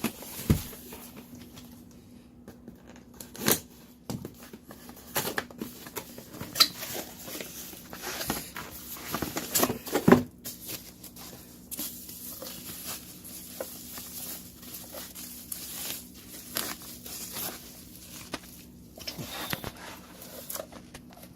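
Plastic packaging crinkling and tearing, with scattered clicks and knocks as TV parts and cables are handled; the sharpest knocks come about three and a half and ten seconds in. A faint steady hum sits underneath.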